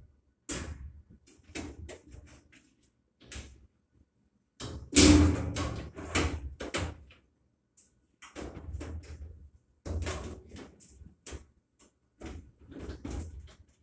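Irregular knocks, clunks and rattles of a GE gas dryer's metal cabinet being handled, the loudest clunk a little after five seconds in.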